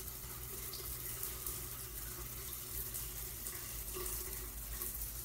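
Shower running, a steady hiss of spraying water.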